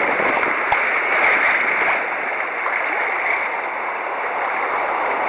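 Rough ocean swell churning and splashing close around a sea kayak: a steady rushing wash of water with no distinct breaks.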